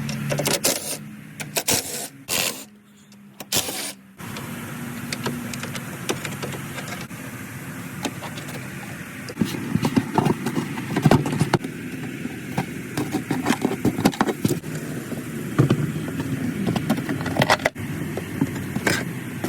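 Metal hand tools and sockets clinking, knocking and scraping in irregular bursts of sharp clicks, while bolts are undone on a side-by-side.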